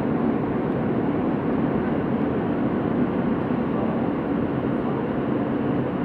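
Steady rumble and hum of a New York City subway car, heard from inside the car.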